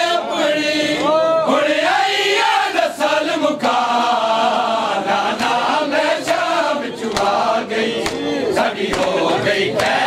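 A group of men chanting a noha, a mourning lament, together, with the sharp slaps of hands beating on bare chests (matam) cutting through, most often in the second half.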